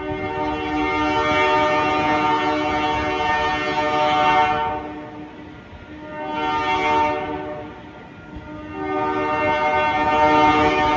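Diesel locomotive air horn, a chord of several tones, sounded in a long blast, a short blast and then another long blast, with the locomotive's rumble beneath.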